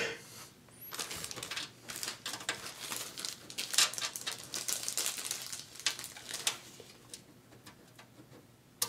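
Faint, irregular small scratching and clicking of motherboard mounting standoffs being handled and threaded by hand into the computer case, dying away about two seconds before the end.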